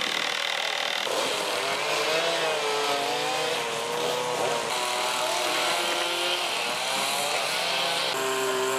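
Chainsaws running at a carving site, their engines revving up and down as they carve. The sound changes abruptly about a second in, around halfway and near the end.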